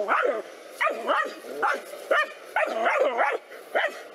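Dogs barking at a snake they are confronting: a rapid, continuing run of sharp barks, about two a second.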